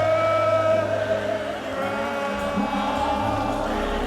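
Live gospel worship music: voices holding long sung notes over sustained low bass notes, the bass shifting lower about two seconds in.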